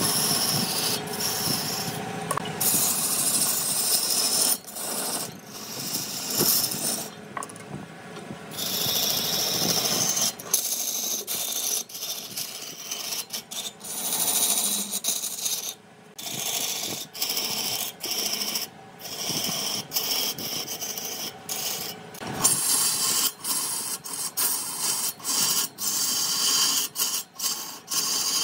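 A hand tool rubbing and scraping against redwood spinning on a large wood lathe, in uneven stretches broken by many short pauses.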